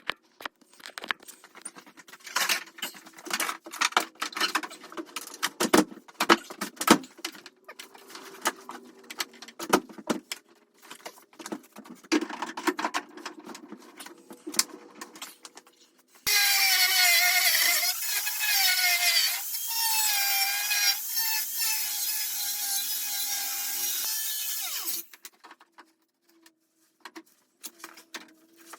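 Irregular knocks and scrapes, then about sixteen seconds in a small power tool cuts loudly for about nine seconds, its pitch wavering under load, and stops suddenly: trimming fiberglass fenders where the tyres rub.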